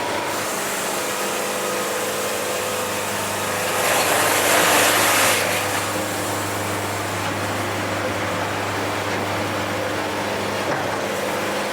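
Wood-Mizer band sawmill running through a cut: a steady engine hum under a few held tones from the band blade, with a louder hiss that rises for a second or two about four seconds in. The band is running clean and quiet on its drip lube, a sign that it is not building up debris.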